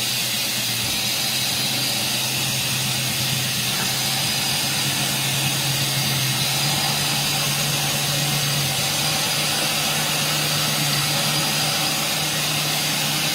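2007 Mazak QTN 200MY II CNC lathe running under power: a steady low hum under an even hiss. The hum's pitch steps up slightly about halfway through and again about two-thirds through.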